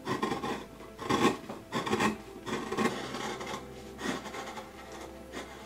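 Hand carving gouge paring white pine: a series of irregular scraping, slicing strokes as chips are cut from a relief carving, most about half a second to a second apart and strongest in the first three seconds.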